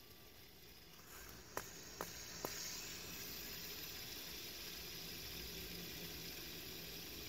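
Fidget spinner flicked with a finger: three sharp clicks about half a second apart, then the spinner keeps spinning with a steady whirring hiss.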